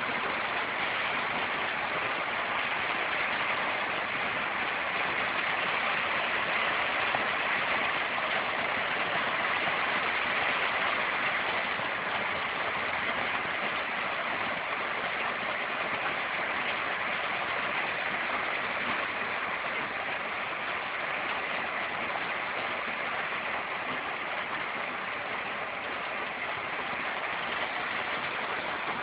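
Steady rain falling on trees and bushes: an even hiss that stays at one level, with no single drops or pauses standing out.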